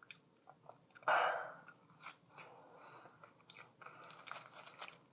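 A person chewing a mouthful of fries close to the microphone, with small wet mouth clicks and one short, louder burst of noise about a second in.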